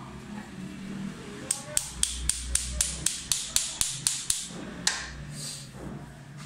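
Small steel hammer striking a rusted metal tap wrench to free it: a quick run of about a dozen sharp metallic knocks, about four a second, then one last blow.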